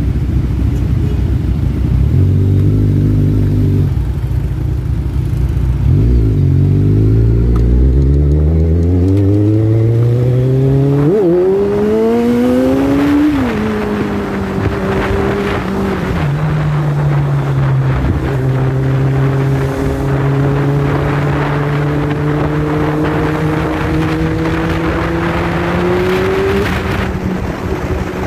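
Kawasaki Z1000 inline-four engine idling at a stop, then pulling away with its pitch rising for several seconds, dropping at a gear change about thirteen seconds in, and settling into a steady cruise. Wind rushes over the microphone once the bike is moving.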